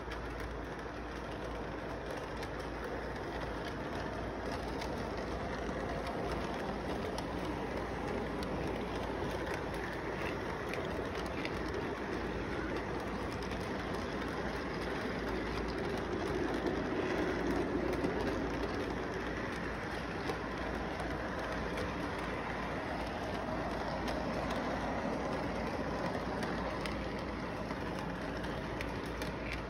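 Model train rolling along its track in a steady rumble, with faint clicks, swelling a little louder about halfway through.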